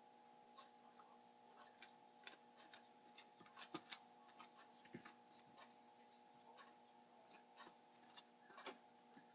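Near silence with faint, irregular taps and clicks of a silicone spatula against a glass icing bowl and glass baking dish as cream cheese icing is scooped and spread, a small cluster of them about halfway through, over a faint steady hum.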